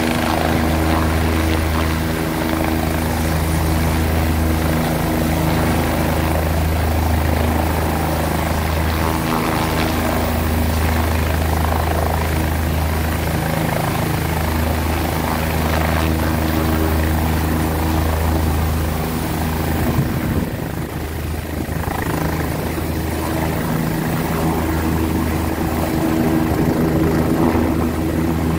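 OH-58D Kiowa Warrior helicopter running as it hovers and comes in to land: its turboshaft engine and four-blade main rotor make a steady low rotor drone with steady engine tones over it. The sound dips briefly about two-thirds of the way through.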